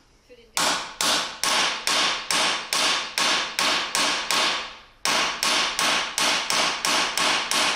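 Hammer blows on metal at a motorcycle's steering head, as part of the work on the steering head bearing races. There are about seventeen evenly paced strikes, roughly two a second, in two runs with a short pause about five seconds in, and each strike rings briefly.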